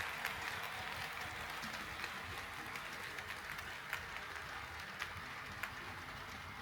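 HO-scale model train rolling on sectional track: a steady metallic rattle of wheels on rail with a few sharp clicks as the wheels cross rail joints, slowly fading.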